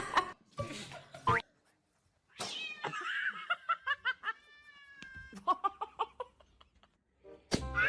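A cat vocalising in a string of short meows, with one longer drawn-out call in the middle.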